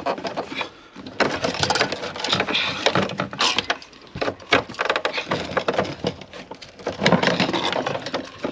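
In-tank fuel pump assembly being worked loose and pulled out of the fuel tank: irregular plastic clicks, knocks and scraping.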